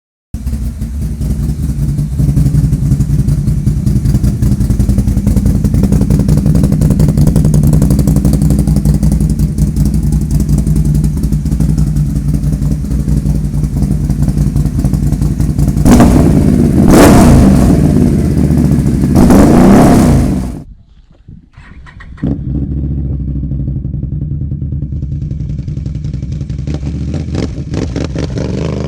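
2022 Can-Am Renegade ATV with an Empire dual exhaust idling steadily, then revved hard twice, about sixteen and nineteen seconds in. After a short break in the sound it idles again, quieter.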